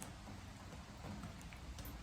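Steady rain with a few faint drips tapping on a wooden deck, one about the start and a couple near the end.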